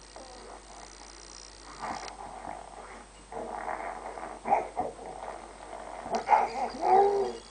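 A baby's wordless vocal sounds in several short bursts, with the pitch bending up and down, loudest near the end.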